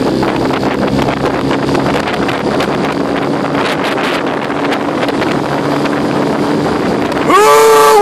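Small outboard motor running steadily with wind noise on the microphone. Near the end, a loud, high-pitched, drawn-out yell from the coach cuts in over it.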